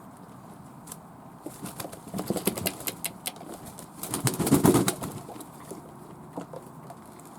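Fantail doves flapping their wings in quick fluttering bursts, with the loudest burst about four seconds in.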